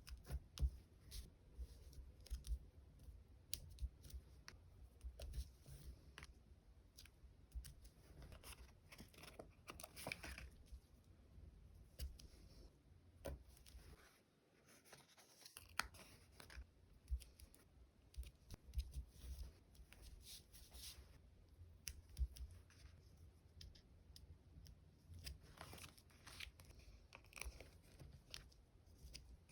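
Close-miked diary-decorating sounds: stickers and paper handled on a desk, with many small light clicks and taps and a few longer stretches of peeling, tearing or rustling, about eight seconds in and again near the end.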